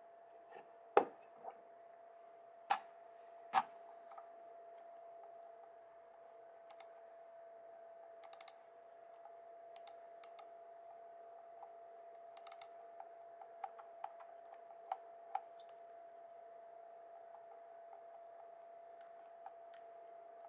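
Computer mouse buttons clicking, sparse and irregular, with three louder knocks in the first few seconds and a faint steady hum underneath.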